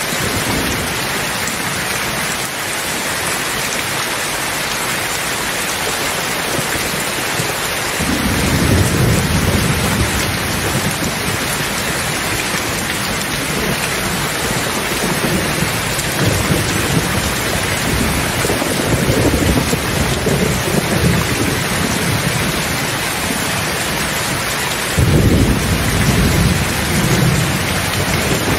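Steady heavy rain with rolling thunder. A low rumble starts suddenly about eight seconds in and swells and fades for some fifteen seconds, and another rumble breaks near the end.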